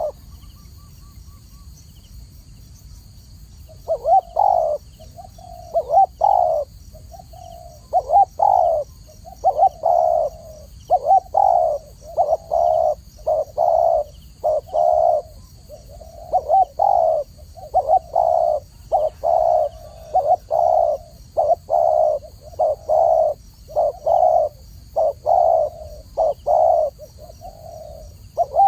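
Spotted dove cooing: after a pause of about three seconds near the start, a long run of repeated coo phrases follows, one after another with short gaps.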